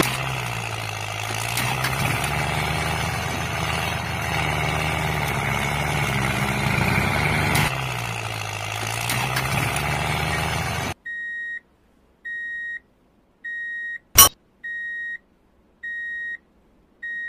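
A tractor engine sound effect plays: a steady engine running whose low pitch dips and rises every few seconds. After about eleven seconds it cuts off, and short, even, high beeps like a reversing alarm follow about once a second, with one sharp click partway through.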